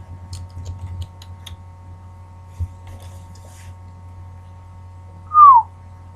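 Light plastic clicks and ticks from an old laptop being pried apart by hand. Near the end comes one short, loud squeak that falls in pitch.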